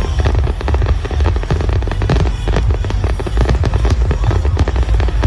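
Fireworks going off: a dense run of sharp bangs and crackles over a steady low rumble.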